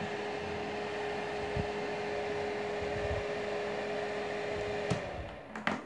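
Homemade box fan with a shaded-pole motor and 5-blade impeller running, a steady rush of air with a steady hum. About five seconds in the hum cuts off with a click, another knock follows, and the air noise dies away.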